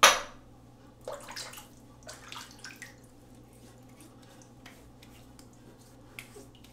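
A sharp clack at the start, then a few seconds of brief water splashes and drips at a bathroom sink as an alum block is wetted before being rubbed on a freshly shaved face.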